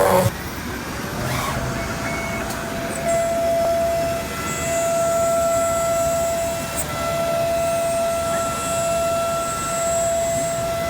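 CNC cutting machine running with a steady high-pitched motor whine that holds one pitch, louder from about three seconds in.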